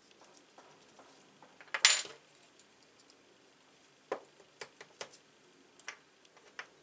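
Small brass Euro-cylinder lock parts clinking and clicking in the hands during assembly: a short metallic rattle about two seconds in, the loudest sound, then a run of light, sharp clicks.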